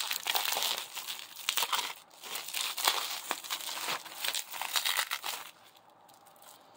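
Plastic bubble wrap crinkling and crackling as hands handle it and begin to unwrap it, with many short sharp crackles; it goes quieter about five and a half seconds in.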